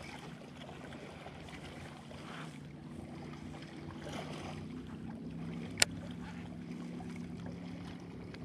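Open-water ambience from a kayak: soft water and wind noise under a low steady drone. A single sharp click comes about six seconds in.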